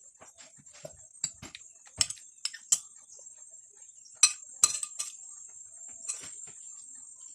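Cutlery clinking and scraping against a plate and dishes during a meal: a string of short, sharp clicks, the loudest about two seconds in and twice more past the middle. A steady high-pitched drone runs underneath.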